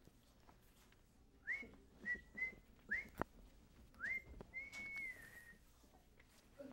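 A person whistling: a few short notes that each slide up to a high pitch, then one long held note that drops a little at its end.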